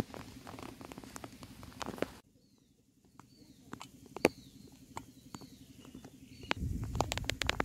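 Outdoor rural ambience: faint bird chirps, scattered clicks and rustles, and a louder low rumbling noise with more clicks near the end.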